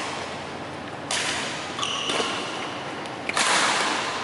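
Badminton rackets striking the shuttlecock in a rally: sharp hits about a second in, around two seconds, and a louder one just past three seconds, each ringing on in the hall's echo. Brief high squeaks of court shoes come between the hits.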